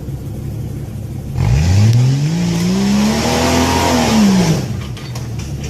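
Off-road 4x4's engine running low, then revved hard about a second and a half in, its pitch climbing and holding high for about three seconds with a loud hiss over it, before dropping back to a low run.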